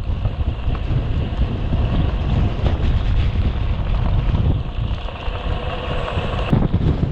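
Wind buffeting the microphone: a heavy, gusting rumble. A faint whine joins it partway through and cuts off suddenly near the end.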